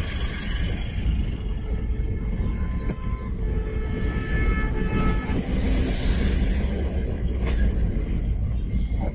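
Steady low rumble of a car's engine and tyres heard from inside the cabin while driving in traffic. Another vehicle's horn sounds for about two seconds near the middle.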